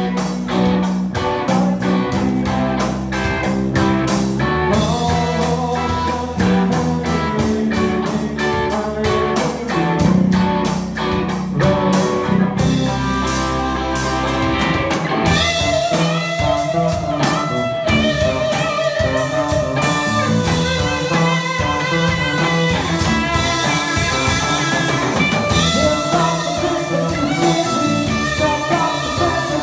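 A live band playing a song: electric guitar over bass and a drum kit keeping a steady beat. About halfway through, the drums ease back and a melodic lead line comes forward.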